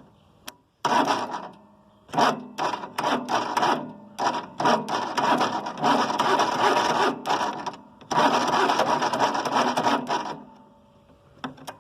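Riding lawn mower's electric starter cranking the engine on a weak, partly dead battery, in repeated labouring bursts that stall against compression without the engine catching. The cranking stops near the end.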